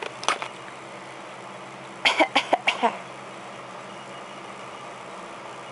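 A baby's short fake coughs: one near the start, then a quick run of about six in under a second, about two seconds in. A steady low hum runs underneath.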